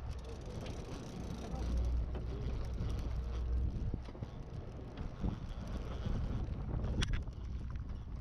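Low steady rumble of a fishing boat with wind on the microphone, heaviest in the first half, and a few short clicks, the sharpest about seven seconds in.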